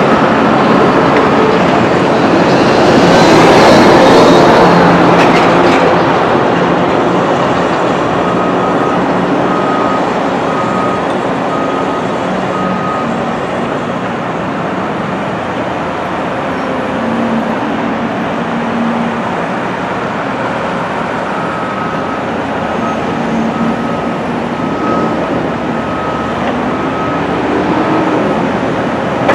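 Diesel engines and hydraulics of Cat hydraulic excavators, among them a Cat 320E, running steadily as the machines work their booms and buckets, louder about three to five seconds in. A regular high beeping sounds about once a second in two stretches.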